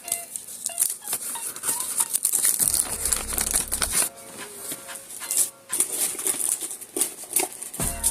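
Plastic candy wrappers crinkling and small items clicking and rattling as a lollipop is handled and placed into a small plastic toy claw-machine box, in quick, irregular rustles.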